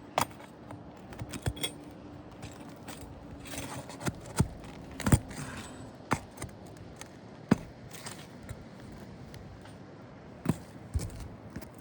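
Nails being pried out of asphalt roof shingles: irregular sharp metallic clicks and knocks with some scraping, about ten in all, the loudest near the middle.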